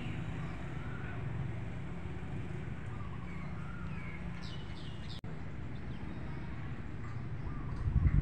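Outdoor ambience of birds chirping over a steady low rumble of passing traffic, with a few low thumps near the end.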